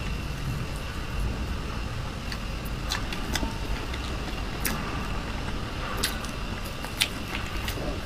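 A metal spoon scraping and scooping soft filling out of a hollowed, round bread, with a few sharp clicks of the utensil against the crust over a steady low hum.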